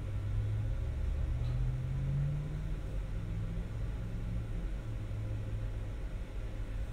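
A low rumble with a droning hum that rises a little in pitch over the first couple of seconds, then holds steady.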